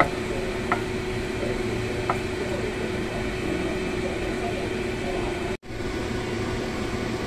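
Wooden spatula stirring beef strips in sauce in a frying pan, giving a few sharp taps against the pan in the first two seconds, over a steady mechanical hum. The sound cuts out for an instant about five and a half seconds in.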